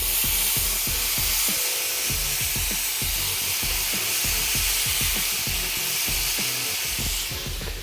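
Sauté pan of fingerling potatoes and grape tomatoes sizzling hard as fresh lemon juice is squeezed onto the hot food; the sizzle eases near the end. Faint music plays underneath.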